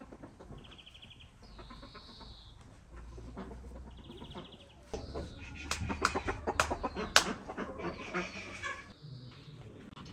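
Domestic chickens, hens with a rooster, clucking in a farmyard. The clucks come thickest and loudest between about five and eight seconds in, and a few short high trills sound earlier.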